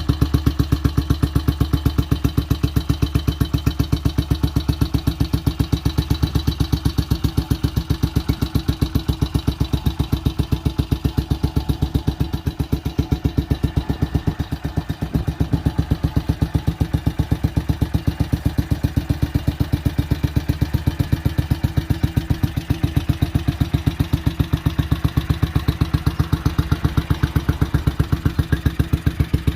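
1951 BMW R25's single-cylinder four-stroke engine idling steadily, an even run of firing pulses that dips slightly in level midway.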